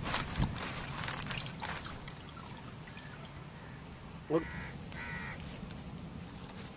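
Wet splashing and dripping as a raw whole chicken is worked and lifted out of a steel bowl of turmeric water, mostly in the first couple of seconds. A crow caws twice, about four and five seconds in.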